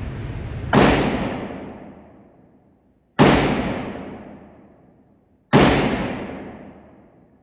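Three gunshots from a firearm fired at a range target, about two and a half seconds apart, each ringing out and dying away over about two seconds.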